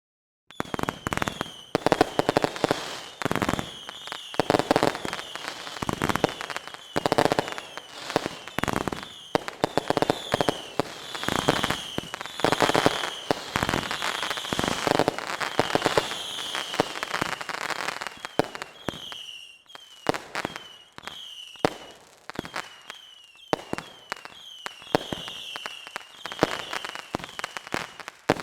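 Whistling fireworks going off in quick succession: many short whistles, each falling slightly in pitch, among a dense run of sharp bangs and pops. The barrage thins out after a brief lull about two-thirds of the way through.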